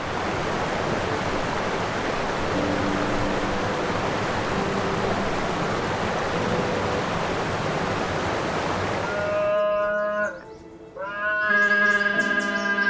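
A steady rushing noise, like running water, over soft background music. About ten seconds in it gives way to two drawn-out animal calls, the second longer.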